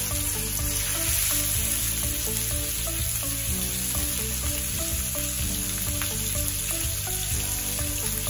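Boneless chicken thighs searing in hot oil in a saute pan, with a steady sizzle.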